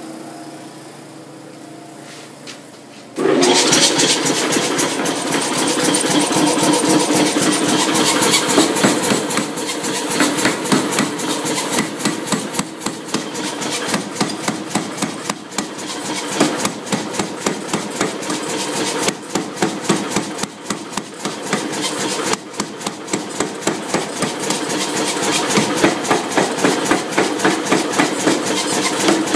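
A power hammer's motor hums steadily. About three seconds in, the hammer starts striking a red-hot 3/4-inch mild steel bar between drawing dies in a rapid, steady run of loud blows, drawing out a taper.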